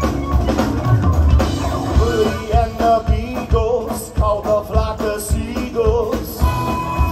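Live rock band playing with electric guitar, keytar and a steady drum beat, a voice singing the melody over it.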